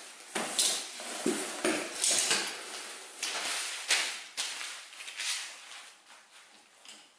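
Nylon and mesh fabric of a cat playpen tent rustling as it is unpacked, with a string of light clinks and knocks from its metal poles and frame. The handling dies down over the last second or so.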